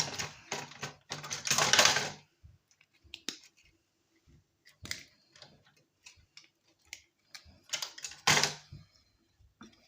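Plastic casing of an old electronic device being prised and pulled apart by hand, a burst of cracking and scraping in the first two seconds, then scattered clicks and knocks, and another sharp crack about eight seconds in.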